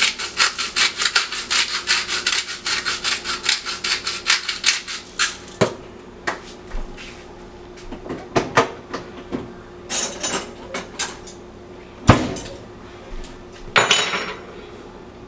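Kitchen knife chopping quickly on a cutting board, several strokes a second, stopping about five seconds in; then scattered knocks, a loud thump about twelve seconds in and a clatter near the end.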